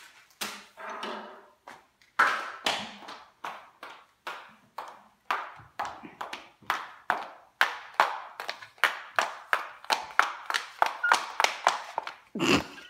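A toddler's footsteps in plastic princess dress-up high heels, clacking on a hardwood floor. The clacks are uneven and sparse at first, then come quicker, about three or four a second, in the second half.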